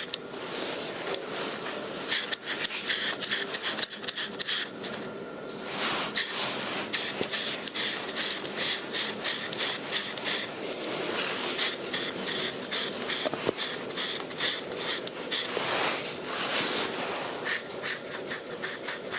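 Aerosol spray can of grey etching primer hissing in many short bursts with brief pauses between them.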